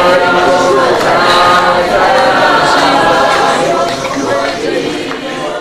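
Choir singing, getting quieter over the last second or so.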